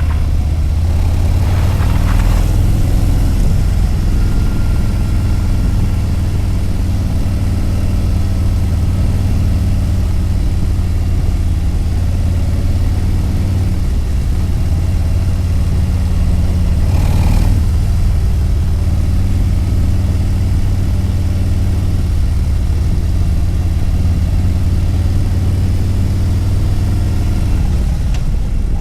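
Harley-Davidson V-twin motorcycle engine running steadily under way, heard from the rider's seat. A brief rush of noise comes twice, about two seconds in and again past the middle.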